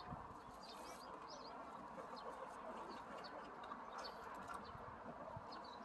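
Small birds chirping faintly in short, scattered calls over a steady low background noise.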